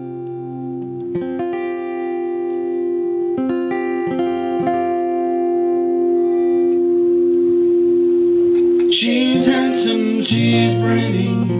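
Acoustic guitar playing a song's introduction: single picked notes ringing out over a low held note, with the playing turning fuller and louder about nine seconds in.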